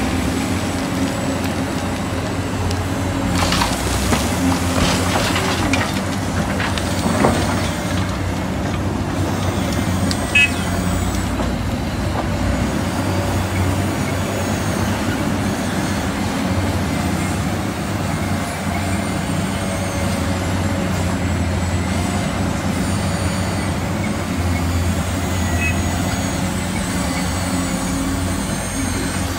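Huina 1594 radio-controlled model excavator running while it works in loose dirt: a steady mechanical drone, rougher for a few seconds near the start.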